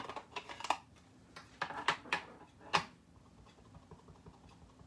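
Hard plastic ink pad cases clicking and clacking as they are handled, several short sharp clicks in the first three seconds, then quiet room tone.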